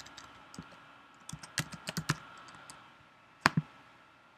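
Keystrokes on a computer keyboard: a scattered run of light taps, with two sharper clicks close together about three and a half seconds in.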